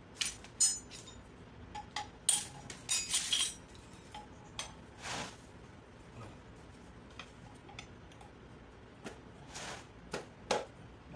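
Metal hand tools clinking and clattering as a wrench on a long extension bar is worked at the bolts in the alternator end of a dismantled gasoline generator. Several sharp clinks come in the first few seconds, with short rasping sounds about five seconds in and again near the end.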